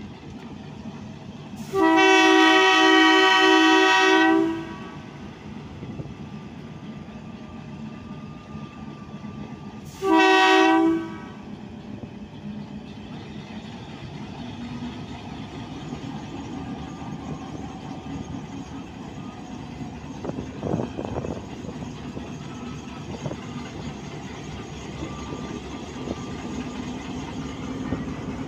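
HBU-20 diesel-electric locomotive's horn sounding one long blast about two seconds in and a short blast about ten seconds in, over the steady rumble of its running diesel engine.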